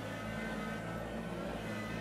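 Background music over the steady running of a Kubota BX compact tractor's diesel engine as the front loader works.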